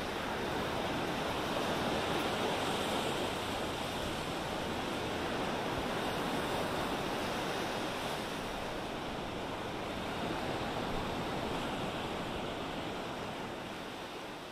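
Ocean surf: a steady rush of waves with slow swells, fading out near the end.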